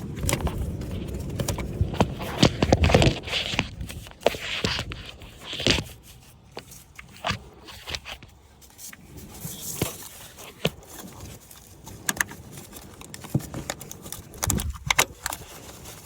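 Hand-work handling noises at the back of a truck engine: irregular scraping, rustling and small clicks as a camshaft position sensor is worked free by hand. The noises are busiest in the first few seconds, then thin out to scattered clicks.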